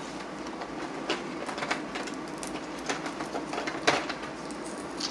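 Cooked blue crab shells being cracked and picked apart by hand, with scattered clicks and crunches and the rustle of an aluminium foil pan, over a steady background hum; the sharpest crack comes about four seconds in.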